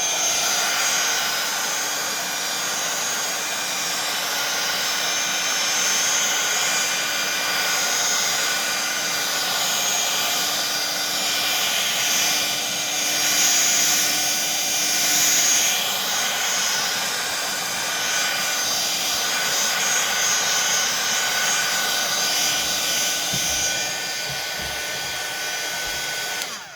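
Electric heat gun running steadily, a blowing hiss with a steady motor whine, passed over freshly poured acrylic paint to pop air bubbles; it is switched off at the end.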